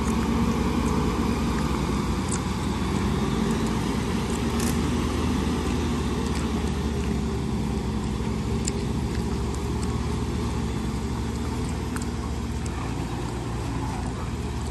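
Dual-rear-wheel pickup truck's engine running steadily under load as it tows a travel trailer out of deep mud on a tow strap.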